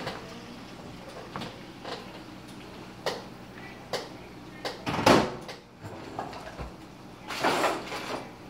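Kitchen handling noises: scattered light knocks and clicks, a louder clatter about five seconds in and a longer rustle near the end, as a tub of butter is fetched and set on the counter.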